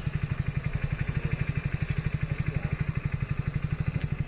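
Mahindra Thar's engine idling steadily, with an even, rapid beat of about ten pulses a second.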